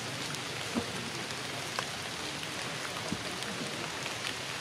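Steady rain pattering on forest foliage, with a few louder drops ticking now and then.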